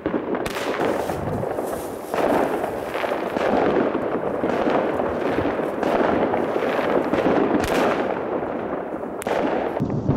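Many fireworks and firecrackers going off at once: a dense, continuous crackle of bangs, with sharper pops standing out here and there.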